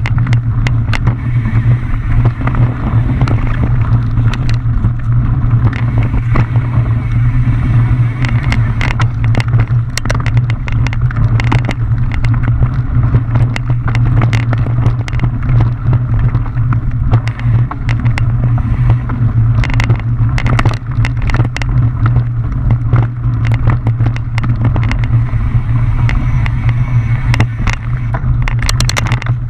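Mountain bike riding fast downhill on a rough trail: a steady low wind rumble on the microphone, with the frequent rattle and clatter of the bike over roots and rocks.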